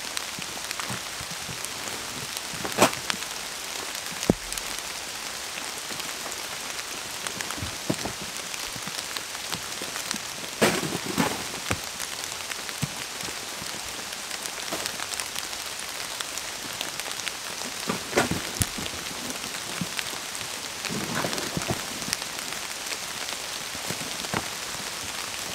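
Heavy, pouring rain falling steadily, with a few sharp knocks now and then, clustered around ten to eleven and eighteen seconds in.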